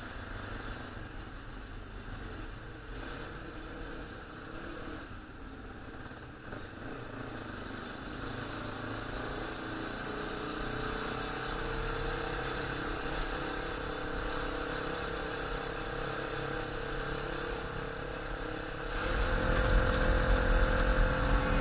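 Motorcycle engine running at a steady pace, heard from a helmet-mounted camera, with a short high chirp about three seconds in. Near the end the sound grows louder with more low wind rumble on the microphone as the bike picks up speed on the open road.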